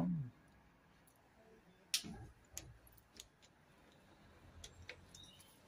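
A few faint, sharp metallic clicks and taps from a spanner and fingers working the nuts on an engine's cylinder head, the sharpest about two seconds in.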